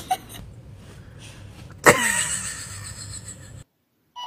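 A small dog gives one sharp bark about two seconds in, falling in pitch as it trails off, over low room noise.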